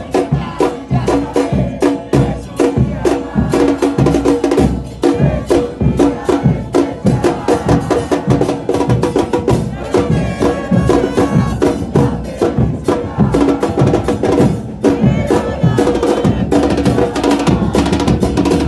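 Repique drums of a football supporters' band playing a fast, driving rhythm in quick, dense strokes.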